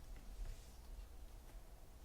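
Quiet room tone with a faint low hum and no distinct sound.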